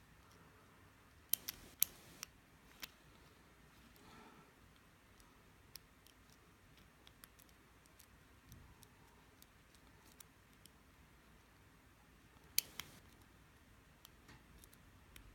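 Faint clicks and light scraping of a hook pick working the pins of a five-pin key-in-knob lock core under light tension, with a few sharper clicks between one and three seconds in and two more near the end.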